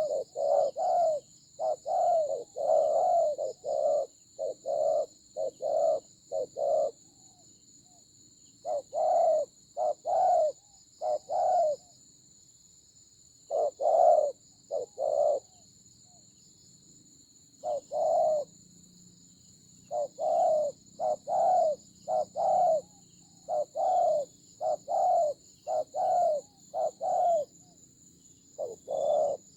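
Spotted doves cooing: short low coo notes repeated in quick runs, broken by pauses of a second or two. A steady high-pitched hum runs underneath.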